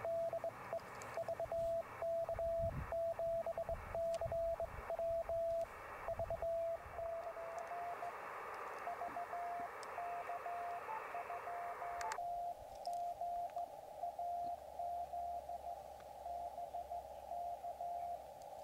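Morse code (CW) received on a Yaesu FT-817 portable transceiver: a single steady beep of about 650 Hz keyed in dots and dashes, with other stations sending callsigns to answer a summit activator's call. Band-noise hiss sits behind it and narrows sharply to a thinner, quieter hiss about twelve seconds in.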